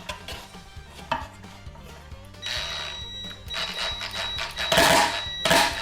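A cordless drill or impact driver runs in several short bursts, driving in bolts, over background music. A couple of light clicks come in the first second.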